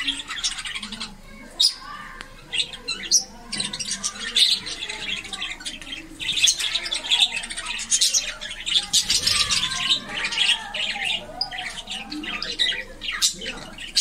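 A flock of budgerigars chattering, many birds calling at once in a continuous mix of warbling chirps and sharp squawks.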